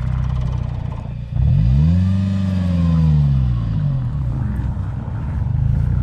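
Renault Duster engine running, then revved once: the revs rise sharply about a second in and sink back over the next few seconds before it settles again, as the car manoeuvres to turn around on icy snow.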